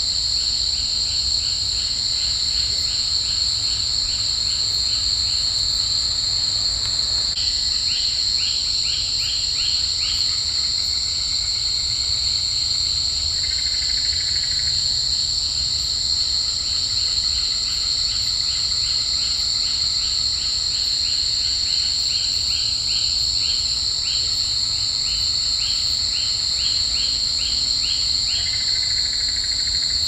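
Nocturnal insect chorus: a steady shrill drone of two high tones, overlaid with runs of rapid chirps, several a second, that start and stop repeatedly, over a low rumble.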